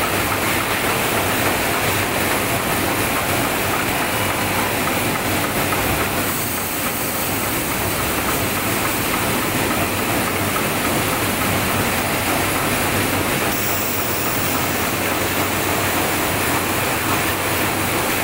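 Automatic 08B roller-chain production line running: steel chain clattering over sprockets and guide rollers between the machines, a dense, steady metallic rattle.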